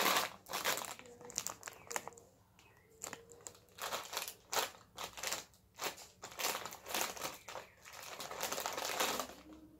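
A foil snack-chip bag crinkling in irregular bursts as a hand rummages in it, with crunching of chips being eaten.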